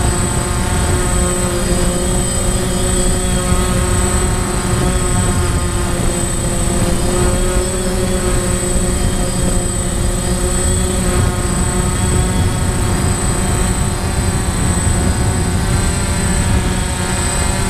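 DJI Phantom quadcopter's motors and propellers running in a steady buzzing hum, with a thin high whine held above it.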